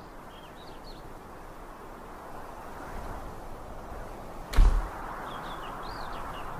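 Outdoor ambience: a steady hiss with a few short bird chirps, broken by a single loud thump about four and a half seconds in.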